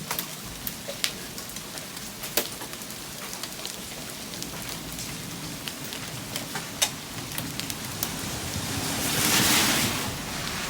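Rain falling steadily from an easing hailstorm, with a few sharp, scattered hits of hailstones striking. About nine seconds in, a louder rush swells and fades over roughly a second.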